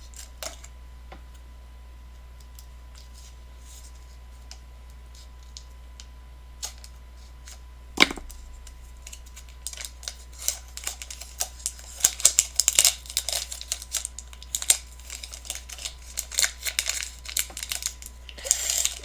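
Foil wrapper of a Pokémon TCG booster pack being opened from the bottom: a few faint clicks, a sharp tap about eight seconds in, then dense, irregular crinkling of the foil through the second half.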